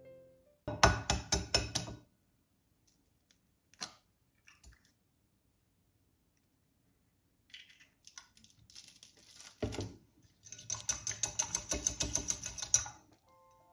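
Eggs being beaten in a glass mixing bowl: fast runs of utensil clicks against the glass, a short one near the start and a longer one of about seven clicks a second near the end. Between them come a few soft taps and a thud.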